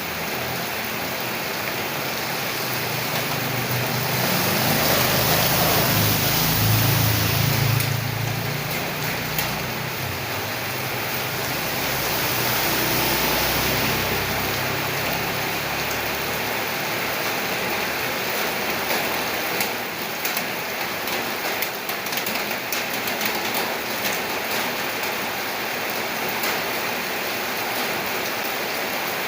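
Steady rain falling, a dense even hiss. A low rumble swells up twice in the first half, and in the second half single drops tick sharply through the hiss.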